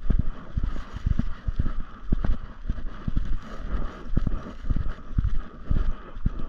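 Footsteps of someone walking on a leaf-littered forest trail, a steady rhythm of about two steps a second, each step a dull thump.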